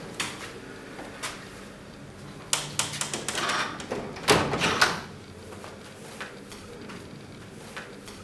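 Household clatter of doors and cupboards being opened and shut: scattered clicks, a busy run of knocks and rustling, and two louder bangs about four and a half seconds in, then only faint ticks.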